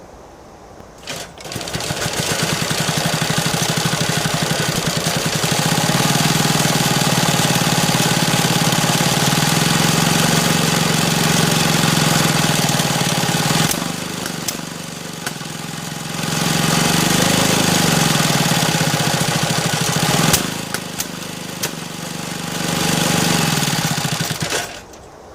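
Villiers two-stroke motorcycle engine being spun by a 3 kW brushless electric motor and misfiring badly rather than running on its own, with a steady whine over it; the misfire could be a timing issue. It spins up about a second in, eases off twice for a few seconds, and stops near the end.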